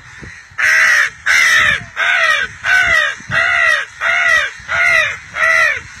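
A boy imitating crow caws with his mouth: eight loud, evenly spaced caws, about one and a half a second, each rising and falling in pitch.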